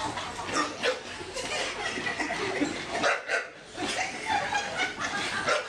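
Bull terrier barking, with people chattering and laughing in the background.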